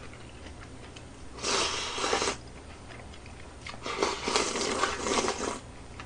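Person slurping noodles from a bowl held to the mouth, two long slurps, the second about two seconds after the first.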